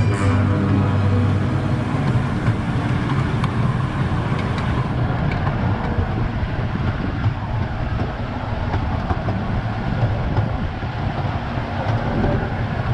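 Casey Jr. Circus Train running along its track: a steady rumble of the cars rolling, with occasional faint clicks.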